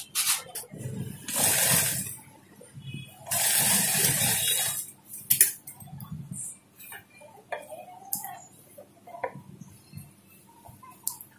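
Industrial sewing machine stitching a seam in two short runs of about a second and a half each, with quieter rustles and clicks of fabric being handled in between.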